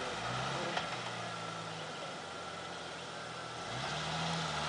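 Jeep Cherokee XJ engine running at low revs while crawling over rocks off-road. A little under four seconds in the revs rise and hold higher as throttle is applied.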